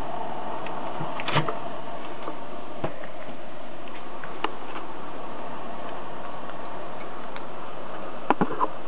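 Steady mechanical whirring with a few light clicks and knocks scattered through it, three close together near the end.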